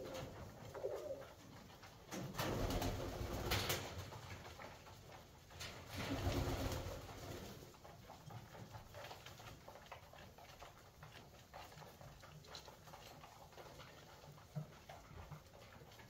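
Köröser tumbler pigeons cooing, with two louder stretches of cooing in the first half, over a scatter of light ticks from birds pecking grain.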